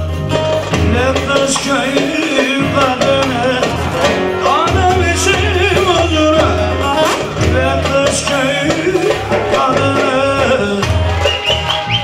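A man singing a Turkish folk song with ornamented, wavering vocal lines. He accompanies himself on an amplified bağlama (long-necked Turkish lute), with sustained low bass notes underneath.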